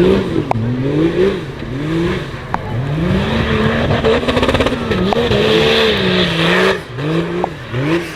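Off-road 4x4 engine revved hard and let off again and again, its pitch rising and falling about six times with a longer held rev in the middle. A hissing noise rides over the middle few seconds and stops sharply near the end.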